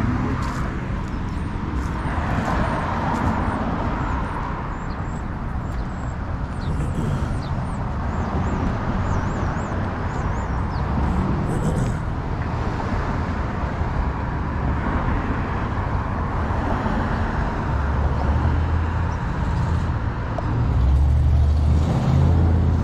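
Road traffic: cars going by, the noise swelling and fading as they pass, with a low rumble that grows louder near the end.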